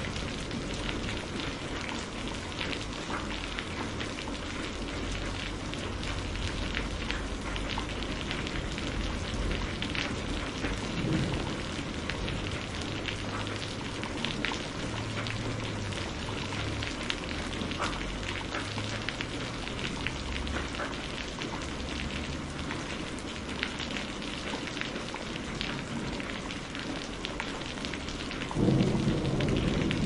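Steady heavy rain: an even hiss with many small drop ticks. Near the end a deep roll of thunder begins and builds.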